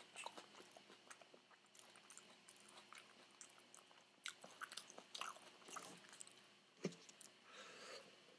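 Faint chewing of a deep-fried peach mango pie: small crunches of the fried crust and wet mouth clicks, a few louder bites past the middle. Near the end comes a short sip through a straw.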